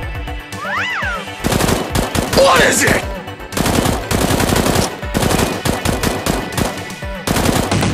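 Rapid automatic gunfire in four long bursts with short pauses between them. It is a realistic machine-gun sound effect laid over toy foam-dart blasters.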